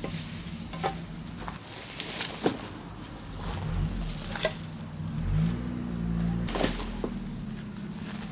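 Wood campfire crackling, with sharp irregular pops every second or two over a low steady hum.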